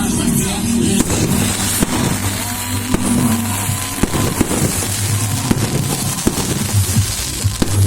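Fireworks bursting: a run of sharp bangs and crackles a second or so apart, over background music with a steady low bass.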